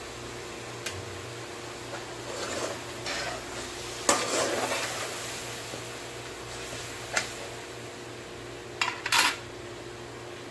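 Metal ladle stirring chicken in a wok, scraping and clanking against the pan as the just-added ground spices are mixed in. The loudest scrape comes about four seconds in, and a couple of sharp clinks come near the end.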